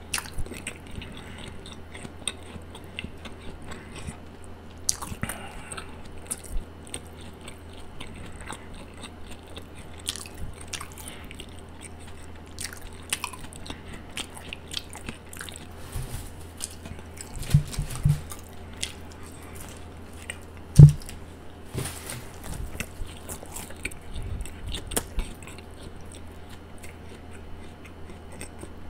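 Close-miked chewing and biting of a Subway spicy Italian sandwich, with wet mouth clicks and crunches over a steady low hum. A few low thumps stand out, the loudest about 21 seconds in.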